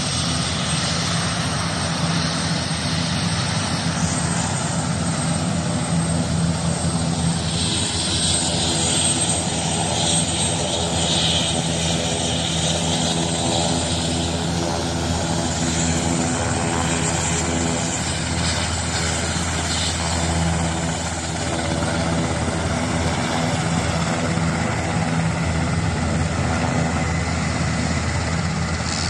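Large helicopter's turbine engine and rotor running steadily as it taxis on the airfield.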